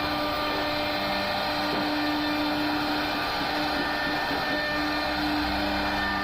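CNC router running steadily while carving a wooden door panel: the spindle motor's whine with a few steady tones over the noise of the cut.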